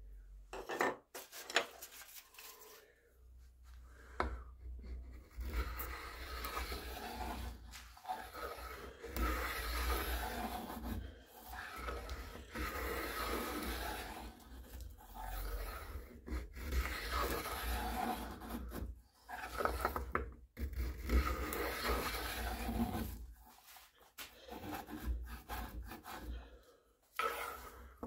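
A hand tool scraping and shaving wood along the barrel channel of a wooden rifle stock, in uneven runs of strokes with short pauses between them.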